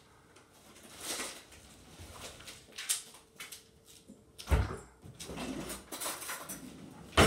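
Quiet handling noises with scattered soft clicks as a candy tube is held up and squeezed into the mouth, a thump about four and a half seconds in and a sharp knock near the end.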